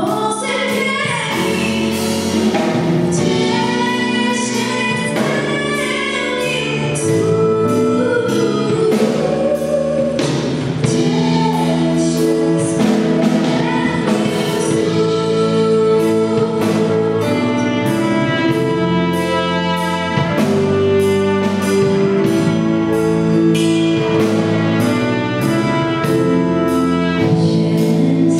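Live band performing a Polish Christmas carol (kolęda): voices singing over instruments, with a steady beat from about a third of the way in.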